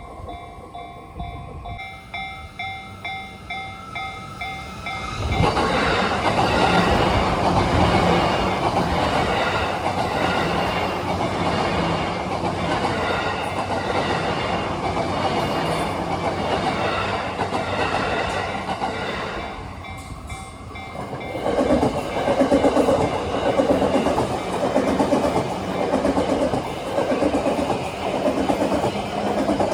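A level-crossing bell ringing in steady pulses, then a Yamanote Line E235-series electric commuter train passing over the crossing from about five seconds in. The noise dips briefly near twenty seconds, then a second train passes with a rhythmic clickety-clack of wheels over rail joints.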